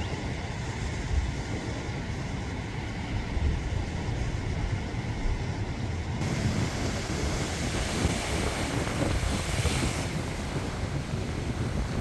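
Sea waves breaking and washing over a rocky shore, with wind rumbling on the microphone. About six seconds in, the hiss of the surf washing over the rocks grows louder.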